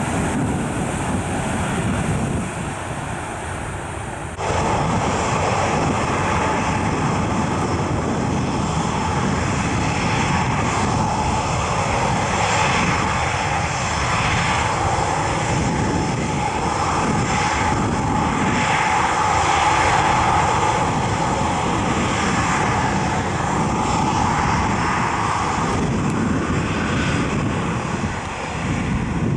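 Qantas Boeing 737-800's twin jet engines at takeoff thrust as the airliner rolls down the runway: a steady loud engine noise with a whine running through it. It jumps suddenly louder about four seconds in, swells a little around two-thirds of the way through, and eases slightly near the end.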